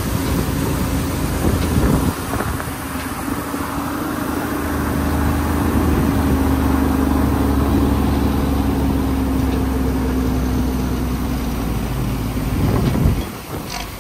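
Heavy diesel engine running steadily at low revs; it cuts off abruptly near the end.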